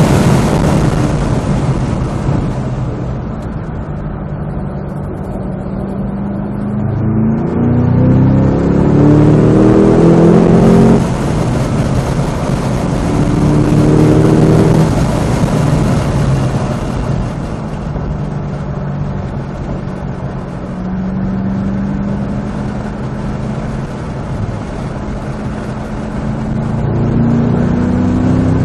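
Supercharged 6.2-litre V8 of a manual Cadillac CT5-V Blackwing on track, heard from inside the cabin. The engine speeds up hard three times, its pitch climbing each time and then dropping off abruptly, with steadier running in between.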